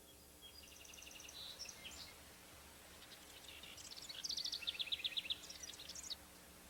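A songbird singing, faint: a short phrase of quick repeated high notes, then after a pause a longer phrase of rapid trilled notes that ends about six seconds in.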